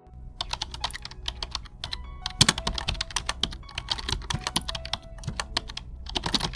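Typing on an ANT Esports KM1610 budget keyboard: a dense, uneven run of key clicks, several a second, with one louder clack about two and a half seconds in.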